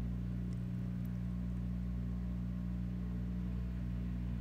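A steady low hum with no other event in it.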